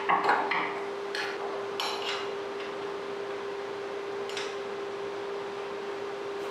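Light metallic clinks of a hex key and bolts against the telescope's metal frame and mounting plate, a few scattered taps with the loudest about half a second in, over a steady hum.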